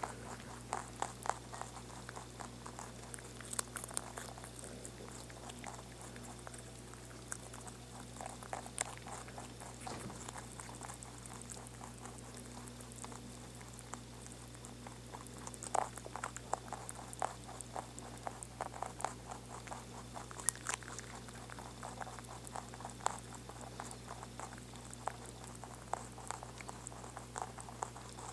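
Two rabbits chewing celery leaves: a fast, irregular crunching made of many small clicks, thinning out for a few seconds midway, over a steady low hum.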